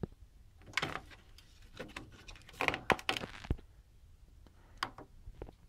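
Grey flat ribbon cable being bent and pushed aside by hand against a circuit board and metal chassis: several short soft rustles with a few sharp clicks in between.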